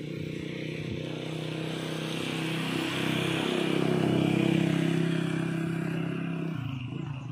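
A vehicle engine running, growing louder to a peak a little past the middle and easing off near the end, as a vehicle passes close by.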